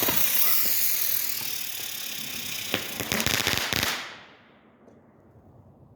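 A consumer firework burning with a steady hiss and a wavering high whistle, with a quick run of crackles and pops about three seconds in; it dies away about four seconds in.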